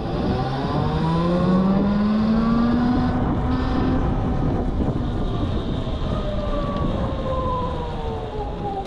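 Super Soco TC-Max's 4.5 kW electric motor whining as the bike rides: the pitch rises over the first few seconds as it speeds up, then levels off and slowly falls as it eases off. Wind rumble on the microphone runs underneath.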